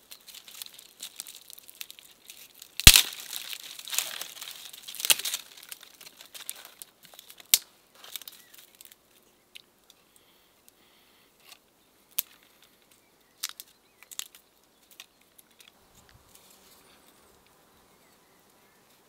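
Dry twigs being snapped and torn off a dead tree by hand: one sharp crack about three seconds in, a couple of seconds of crackling and breaking, then scattered single snaps.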